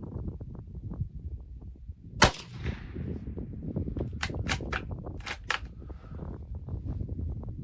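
A single shot from a Marlin 983S .22 WMR rifle firing a Remington 40-grain pointed soft point, with a short echo trailing off. About two seconds later come five quick, sharp clicks.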